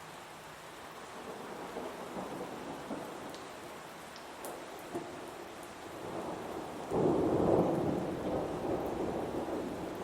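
Thunder rumbling over steady rain: a low rumble swells early on, then a louder roll breaks about seven seconds in and slowly dies away.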